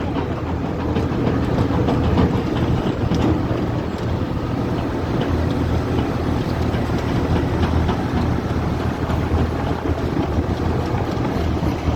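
Crane engine running steadily under a continuous low, rumbling mechanical noise.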